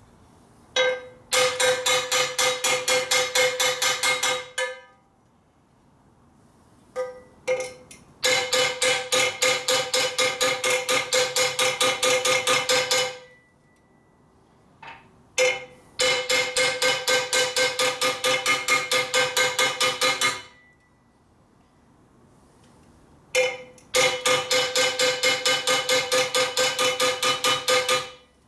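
A hammer beating rapidly on the end of a steel motorcycle exhaust pipe, about four blows a second in four long runs, each blow ringing with a clear metallic tone. The pipe end is being dimpled back into round after being ovaled out.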